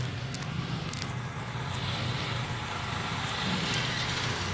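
Steady background rumble with a low hum and hiss, swelling a little midway.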